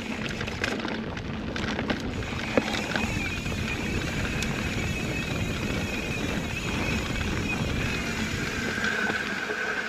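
Santa Cruz Bronson mountain bike riding along a dirt trail: steady tyre rumble and drivetrain noise, with a few knocks and rattles in the first couple of seconds, and wind on the microphone.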